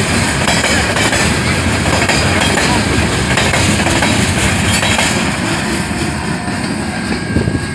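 Train passing close by, its railcars rolling over the rails with a steady, loud rumble and clatter of wheels on rail joints. It eases a little near the end.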